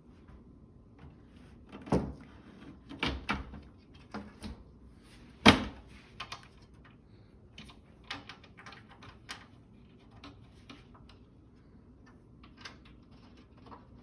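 A PC case's side panel being fitted and slid shut: a series of clunks and knocks, the loudest about five and a half seconds in, followed by lighter clicks and taps.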